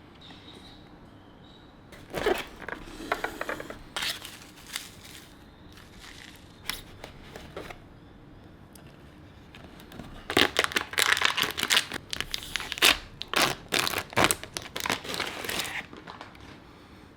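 Packaging being unwrapped by hand, with crinkling, rustling and tearing in two busy stretches: from about two to five seconds in, and again from about ten to sixteen seconds.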